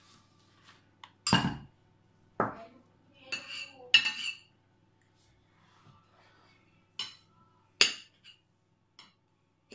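Metal cutlery clinking against ceramic bowls as pizza toppings are scooped out and spread. There are about seven sharp clinks, some with a short ring. The loudest come about a second in and about four seconds in, with a pause in the middle.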